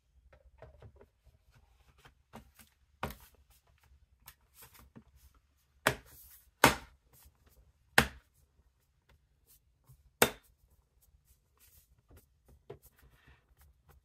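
The bottom cover of a Dell Precision 3470 laptop being pressed down onto the chassis, its clips snapping into place. Five louder sharp snaps stand among quieter clicks, taps and handling noise.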